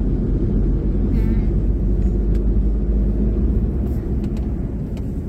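Car driving along a road, heard from inside the cabin: a steady low rumble of engine and tyre noise. A short warbling chirp comes about a second in.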